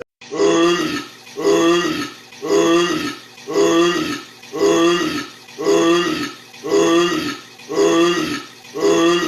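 A man's burp repeated about ten times at an even pace, roughly one a second, each burp sounding just like the last.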